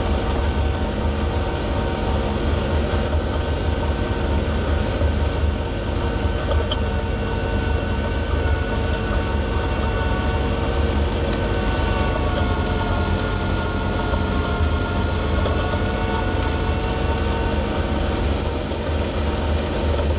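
Kubota B2601 compact tractor's three-cylinder diesel engine running steadily, powering a front-mounted snowblower that is cutting and throwing snow.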